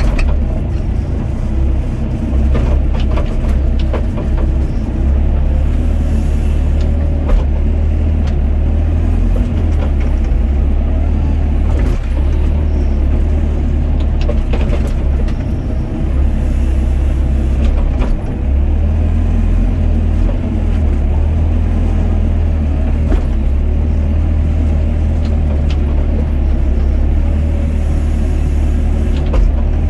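Doosan DX55 mini excavator's diesel engine running steadily under working load as the boom and bucket dig a trench, with scattered clunks from the bucket and arm.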